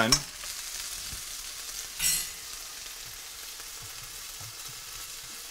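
Stir-fry vegetables sizzling in oil in a wok, a steady hiss, with a brief louder noise about two seconds in.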